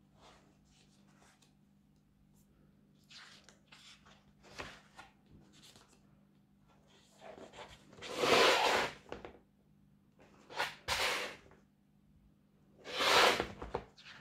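Sketchbook pages being handled and turned: paper rustling and swishing, with two longer, louder swishes about eight and thirteen seconds in and shorter rustles between.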